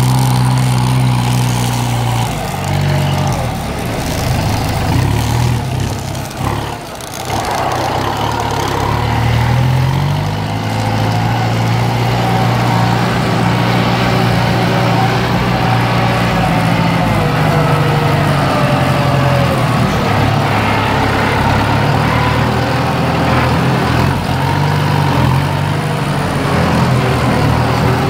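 Small battery-powered DC motors of a homemade model tractor running, a steady buzzing whine with gear and wheel rattle; the pitch sags about seven seconds in and climbs back up as the load eases.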